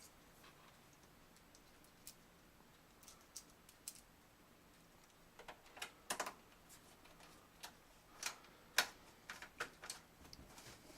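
Faint, irregular clicks and ticks of a screwdriver turning screws into the power supply's mounting holes in a metal computer case, in small clusters.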